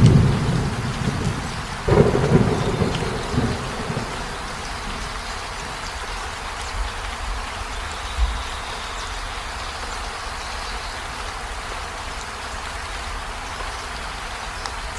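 Steady heavy rain with thunder rumbling. A sharper thunderclap comes about two seconds in and its rumble dies away by about four seconds, leaving the even hiss of the rain.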